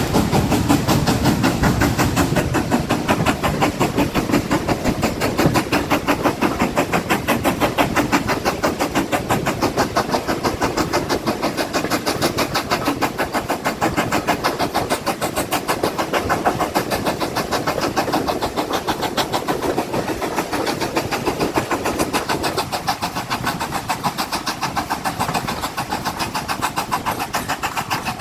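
A train running, with a fast, steady, even beat throughout.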